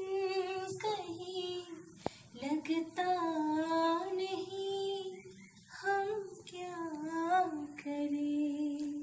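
A young woman singing a Hindi song unaccompanied, in long held notes sung in several short phrases. A single sharp click comes about two seconds in.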